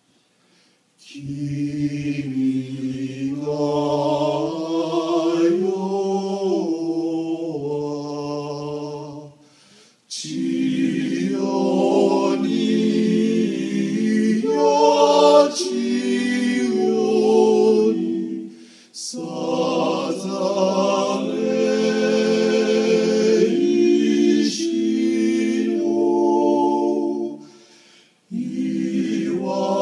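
Male vocal quartet singing a cappella in close harmony, in sustained phrases of about eight or nine seconds with short breaks between them.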